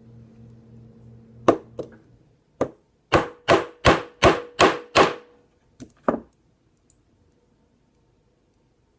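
A small hammer striking a pistol part again and again, as when tapping a pin in or out. There are a few separate blows, then a run of six quick, evenly spaced strikes, then two more.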